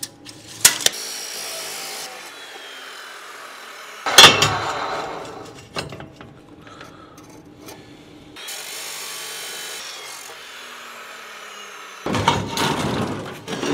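Abrasive chop saw cutting steel stock. It starts loud about four seconds in and fades away over a couple of seconds, then cuts again loudly near the end, with lighter handling clatter of steel pieces in between.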